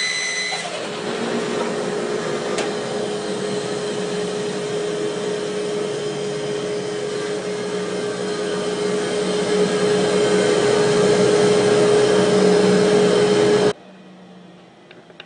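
Rikon bandsaw running in a woodshop, its blade just through a cut in a green log. A high whine stops in the first second, then the saw runs on with a steady hum under the blade noise, getting louder toward the end before cutting off suddenly.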